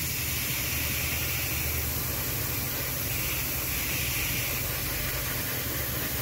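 Airbrush spraying black primer: a steady hiss of air and paint, with a low hum underneath.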